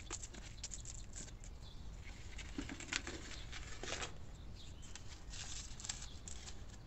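Compost soil rustling, with light clicks and scrapes as small plastic cups filled with it are handled and set down on a stone worktop.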